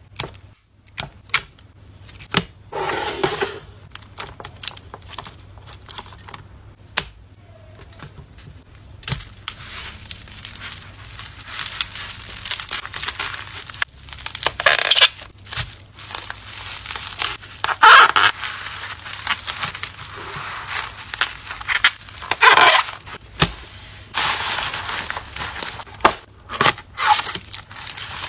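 Plastic packaging handled close up while photocards are packed: scattered sharp clicks and taps at first, then continuous crinkling and rustling from about nine seconds in, with louder bursts of tearing-like crinkle.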